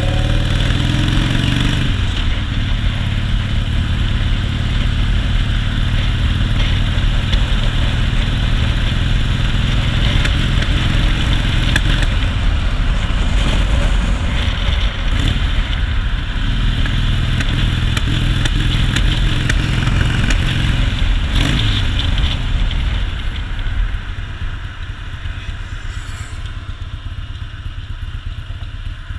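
2001 Harley-Davidson Softail's Twin Cam 88B V-twin running steadily while the bike is ridden, with no misfire yet. The sound gets quieter about three-quarters of the way in.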